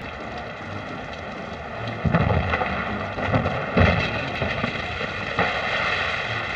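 A rushing, crackling noise with several heavy thuds about two to four seconds in.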